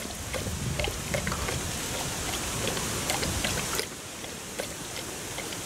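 Canned broth being poured into a slow cooker full of chicken and vegetables: a steady run of liquid pouring and splashing.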